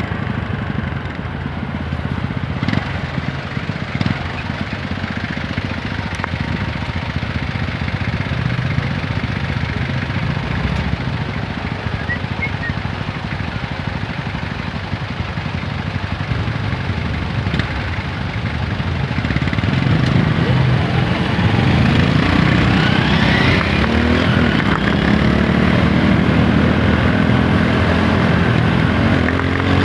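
TVS Apache 160 4V's single-cylinder engine heard from the rider's seat, running at low speed in traffic, then growing louder and accelerating from about twenty seconds in, its pitch rising as it revs.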